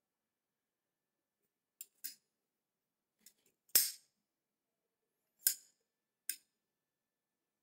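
Kizer Cormorant folding knife, TC4 titanium handle and 20CV steel blade, being snapped open and folded shut: a string of about six sharp metal clicks as the blade swings and locks, the two loudest about two seconds apart in the middle.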